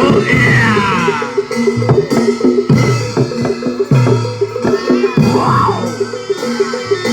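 Javanese barongan accompaniment music: drums and struck metal gamelan instruments playing a fast repeating pattern. A sliding high tone falls about half a second in and rises and falls again around five and a half seconds.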